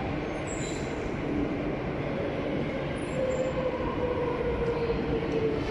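Madrid Metro series 8400 electric train pulling into an underground station: a steady rumble of the train on the track. About halfway through, a tone comes in and slowly falls in pitch as the train slows, and the sound grows a little louder.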